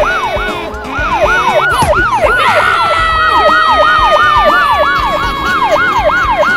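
Police-style siren sound effect, its pitch sweeping rapidly up and down about three times a second. About two and a half seconds in, a second long tone joins it and slowly falls in pitch.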